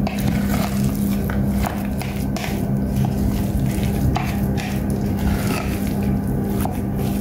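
Metal spoon stirring a thick walnut and red-pepper paste in a glass food-processor bowl, clicking and scraping against the glass about twice a second, over a steady low hum.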